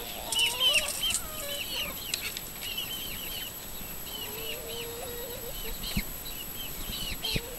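Backyard chickens in a coop and run: a hen's drawn-out low wavering call near the start and again about halfway through, over a steady stream of short, high chirps. A couple of faint knocks near the end.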